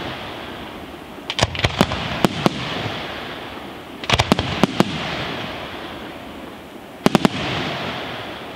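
Aerial firework shells bursting overhead in three quick clusters of sharp bangs: about a second and a half in, about four seconds in and about seven seconds in. A steady hiss from the burning stars runs between the volleys and fades slowly after each one.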